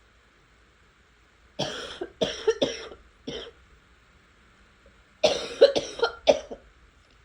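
A person coughing in two fits of about four short, hacking coughs each, the first about a second and a half in and the second just after five seconds.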